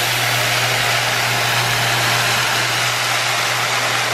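A stream of small plastic slushy beads pouring into a plastic tub of slime base, making a steady, dense hiss.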